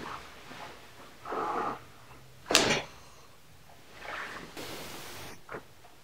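A joint cracking under an osteopath's manipulation of the leg: one loud pop about two and a half seconds in, the sound of gas released from the joint (cavitation). Softer handling noises come before it and a small click near the end.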